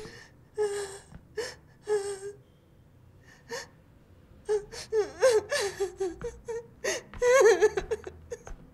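A woman sobbing and whimpering with gasping breaths, a short lull, then a longer run of wavering, broken crying that is loudest near the end.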